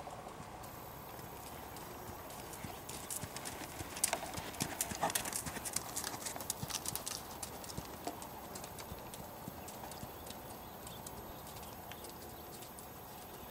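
Hoofbeats of a Belgian Warmblood gelding trotting on a sand arena, growing loud as the horse passes close about four to seven seconds in, then fading as it moves away.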